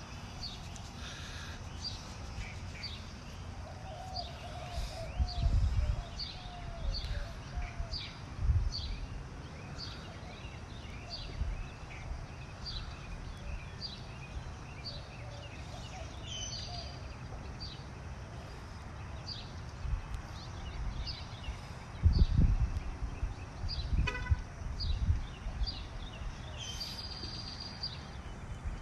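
A bird chirping over and over, a short high note about once a second, with low gusts of wind buffeting the microphone a few times, and a brief beep a little before the end.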